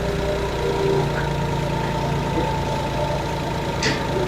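Car engine idling steadily with the air conditioning switched on: a constant low hum with a faint steady whine. There is a brief sharp sound near the end.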